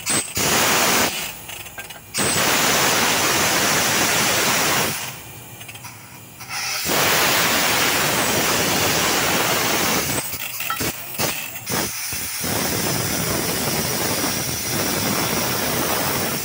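Compressed air rushing through a borewell drilling rig's hoses and valves as a loud hiss, in several long blasts with short breaks between them.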